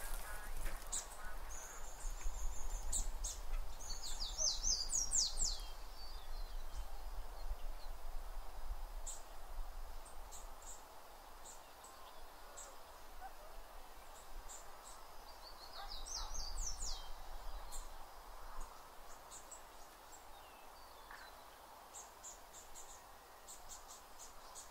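Outdoor forest ambience of birds chirping and trilling in short high calls over a faint steady hiss. The calls come thickest about four seconds in and again around sixteen seconds, then thin out.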